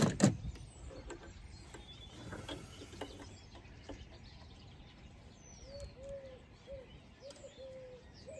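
Metal hand tool clicking on the EGR valve's rear bolt: two sharp clicks at the start, then fainter clicks and knocks. From about five seconds in, a pigeon coos repeatedly in the background.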